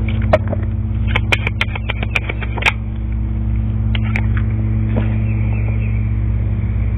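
A steady low engine-like hum, with a quick run of sharp clicks about a second in and a couple of single clicks later.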